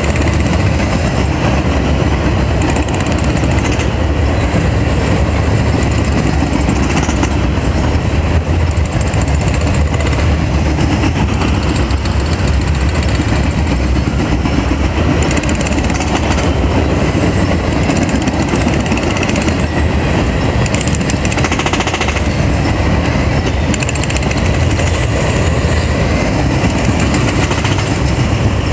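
Herzog ballast hopper cars rolling past close by: a steady, loud, dense rattle and clatter of steel wheels on the rails.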